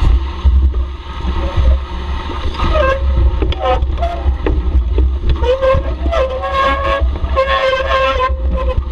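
Bicycle ride down a rough, muddy descent: a heavy low rumble of wind and ride on the microphone with scattered rattles and knocks. From about two and a half seconds in, the brakes squeal several times in held, wavering tones.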